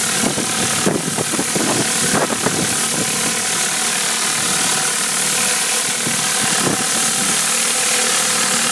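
An engine-driven high-pressure cleaner running steadily, its water jet hissing as it blasts grime off roof tiles, with a few irregular knocks in the first few seconds.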